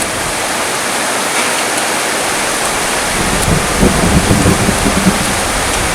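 Heavy rain pouring steadily, with low thunder rumbling in from about halfway through.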